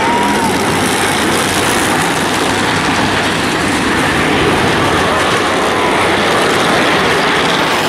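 Several race car engines running around a short paved oval, heard as a dense, steady din.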